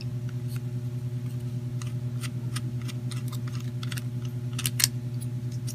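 Faint scattered clicks and ticks of small plastic parts being handled as a GoPro's mounting thumb screw is turned, over a steady low hum with a fast even pulse.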